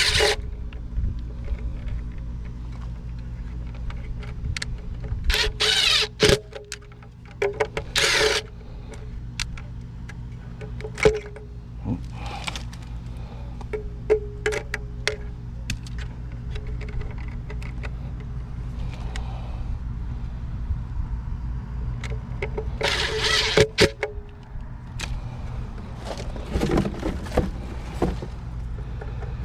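Hand work on a pool pump drive: clicks, knocks and short rattles of tools, screws and wiring being handled, with the loudest bursts about five, eight and twenty-three seconds in, over a steady low hum.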